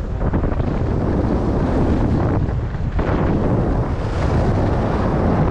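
Wind buffeting the microphone of a skier's camera during a downhill run, a continuous loud low rumble, with the hiss and scrape of skis on packed, groomed snow above it.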